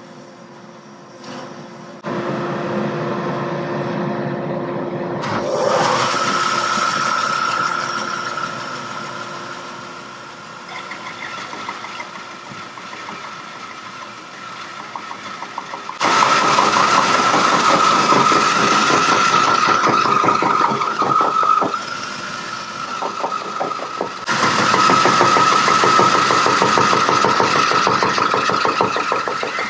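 Bandsaw starting up about two seconds in, then resawing a zebrawood board on edge, with a steady whine while the blade is in the wood. The cut gets louder in two long pushes in the second half, one from about halfway and one near the end.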